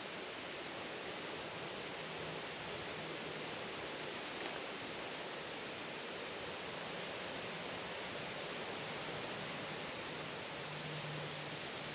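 Steady rush of flowing stream water, with a short high chirp repeating about once a second.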